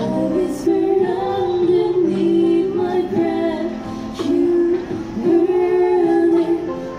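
Street band playing: a woman singing a melody into a microphone over held electric keyboard chords.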